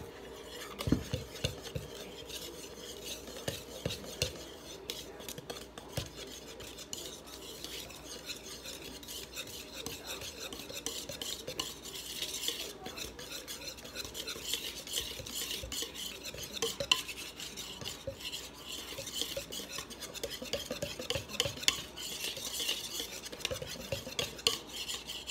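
Wire whisk beating batter in a large mixing bowl: a rapid, continuous scraping clatter of the wires against the bowl, growing brisker and louder about halfway through. The batter is being whisked until smooth.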